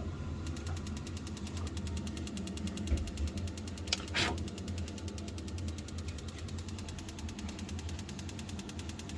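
Biasi boiler's ignition electrode sparking in a fast, even ticking over a steady low hum, with a brief hiss about four seconds in. The burner does not light: the gas valve is not opening despite receiving voltage.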